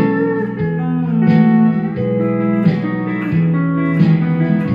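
Emmons pedal steel guitar being played: picked chords ring on under the steel bar, a new chord struck about every three-quarters of a second, with a few gliding bends in pitch.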